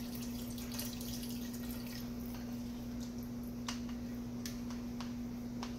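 Broth dripping and trickling off a slotted spoon into a pot of soup, with a few light clicks near the end, over a steady low hum.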